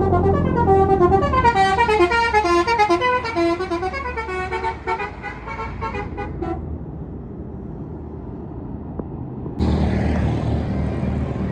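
Tour bus's Basuri telolet horn playing a fast run of melody notes, several horn tones sounding together, for about six seconds before it stops. A low engine rumble follows, and a sudden loud rushing noise starts near the end.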